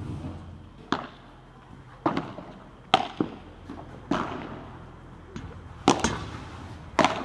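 Padel rally: the ball is hit back and forth with padel rackets and bounces on the court, giving about eight sharp pops spaced roughly a second apart over a low background hum.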